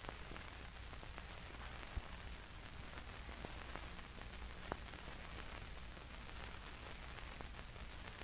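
Faint hiss and low hum of an old film soundtrack between stretches of narration, with a few faint clicks scattered through it.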